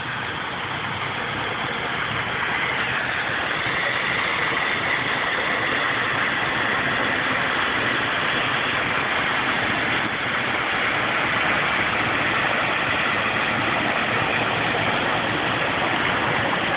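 Vehicles driving slowly through a flooded street: a steady rushing wash of water mixed with engine noise.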